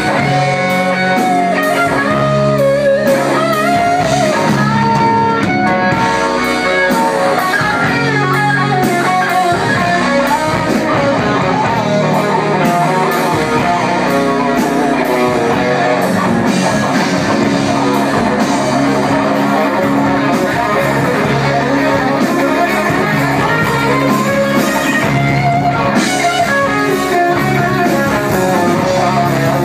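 Live rock band playing loudly: electric guitar over bass guitar and drum kit.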